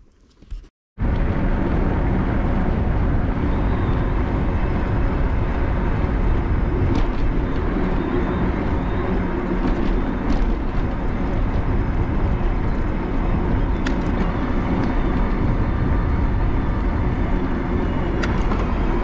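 Steady rush of wind buffeting the microphone of a camera riding on a moving e-bike. It starts abruptly about a second in, with a few faint clicks over it.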